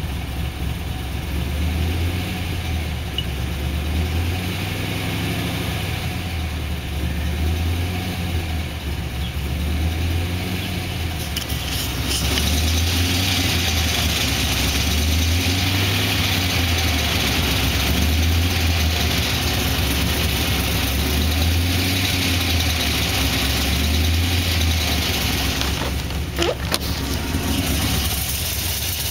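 Pontiac GTO's 6.0 L LS2 V8 idling steadily, with a low, evenly pulsing note; the owner is checking it for piston slap. It grows louder and hissier about twelve seconds in, and there is a single sharp click near the end.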